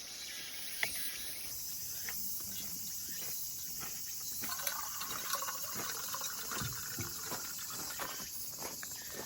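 Faint campsite ambience: a steady high chirring of insects, with a few small clicks and knocks.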